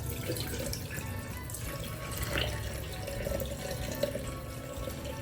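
Water running from a tap into a sink, a steady splashing flow.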